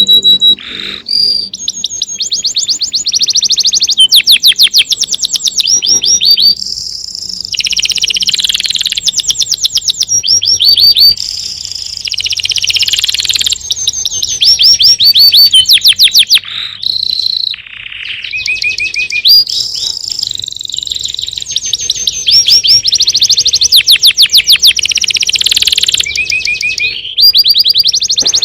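Songbirds singing: a dense run of fast trills and chirps, phrase after phrase of rapidly repeated high notes with only brief breaks.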